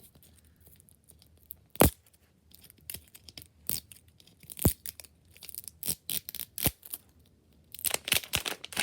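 Plastic wrapping of an L.O.L. Surprise toy ball being torn open by hand: scattered crackles and snaps, coming thicker near the end.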